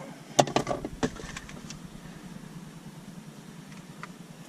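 A few irregular sharp clicks and knocks of tools and a just-removed bolt being handled, mostly in the first second and a half, over a steady low hum.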